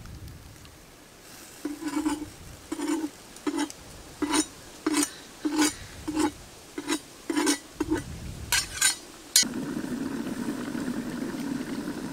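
About a dozen sharp knocks at a steady beat, roughly one every two-thirds of a second. Near the end they give way abruptly to the steady hiss and crackle of a wood fire burning under a wok.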